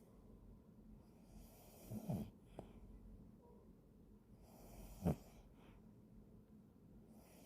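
Yorkshire terrier snoring in its sleep: two short snores, about two seconds in and about five seconds in, with soft breathing between.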